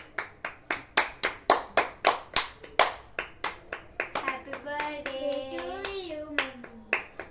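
Hands clapping in a steady rhythm, about three claps a second, with a voice singing briefly about five seconds in before the clapping resumes.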